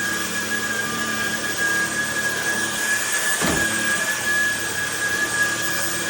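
Cordless stick vacuum cleaner running on a raised suction setting: a steady high whine over an airy rush of suction, with a brief change in tone about halfway through.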